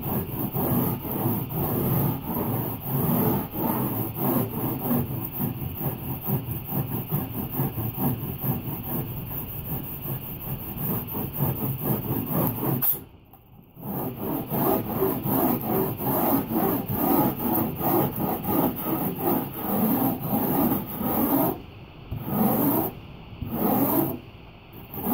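Hand rasp scraping blue rigid foam board in quick back-and-forth strokes, shaving it down a little at a time. The strokes stop briefly about halfway and pause twice more near the end.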